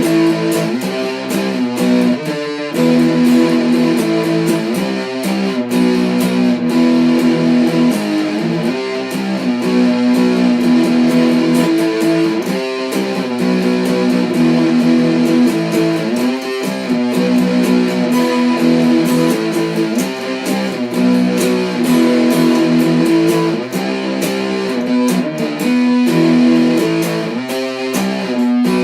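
Guitar-led music: held chords that change every few seconds, with no singing.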